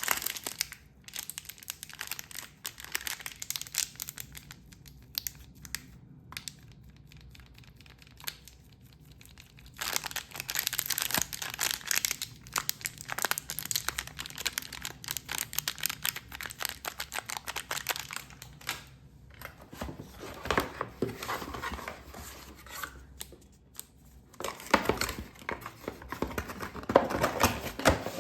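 Plastic packaging crinkling and rustling as small accessories are unwrapped by hand, in bouts, with a quieter lull of a few seconds partway through and the busiest handling near the end.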